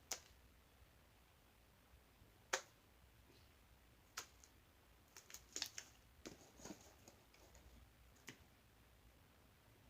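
Fluffy slime being worked by hand: sharp little pops and clicks of air bubbles bursting, scattered singly with a quick cluster near the middle, against near silence.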